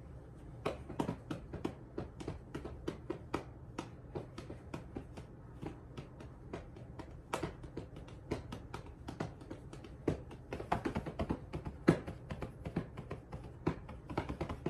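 Beatboxing into a studio microphone: a run of sharp mouth clicks and pops, about two to four a second in a loose rhythm, starting under a second in.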